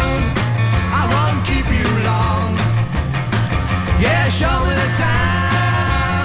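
A 1960s British beat group record playing: a passage without lead vocal, with a steady bass line under the band.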